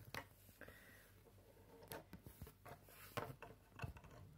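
Faint clicks and light rubbing of small plastic Lego pieces and a minifigure being handled, with a few separate taps scattered through.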